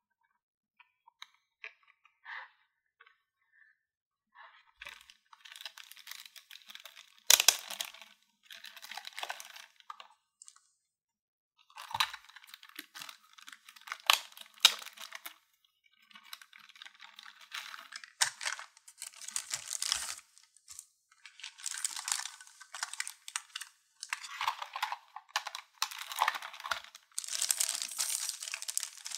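Toy packaging being handled and torn open: crinkling and tearing in irregular bursts with short pauses, with a few sharp cracks, starting with only faint small ticks and getting busier toward the end.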